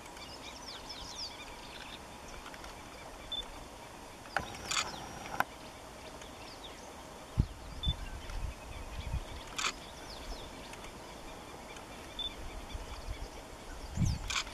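Bush ambience with small birds chirping, including a short high note repeated about every four seconds, plus a few sharp clicks and some low bumps in the second half.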